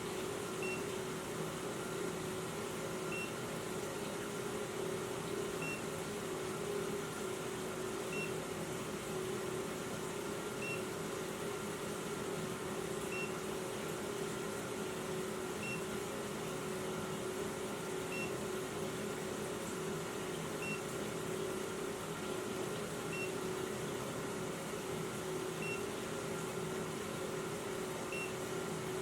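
Carbon monoxide detector giving a short high beep about every two and a half seconds over a steady hum.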